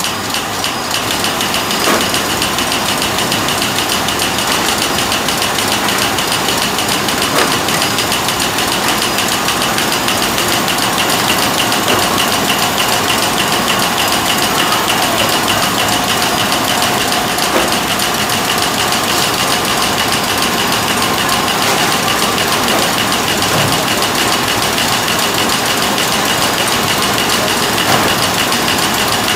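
Automatic snack bar feeder and packing machine running at speed, its belt conveyors carrying chocolate bars: a steady, dense mechanical clatter with a faint high whine.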